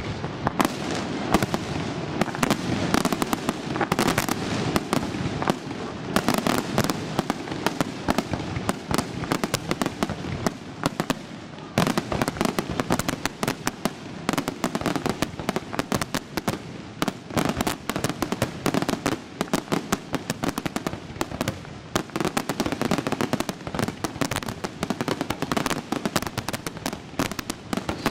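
Fireworks display: aerial shells bursting in a rapid, continuous barrage of bangs and crackles.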